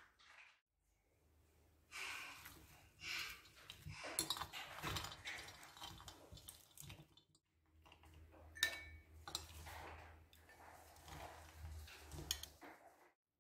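Two metal forks tossing chopped fruit salad in a bowl, scraping and clinking against the dish. Then a metal spoon scoops the salad into a glass cup with sharp clinks.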